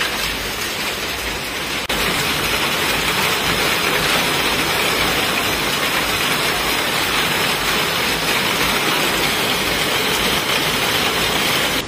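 Heavy hail and rain pouring down in a dense, steady hiss. It gets a little louder after a cut about two seconds in.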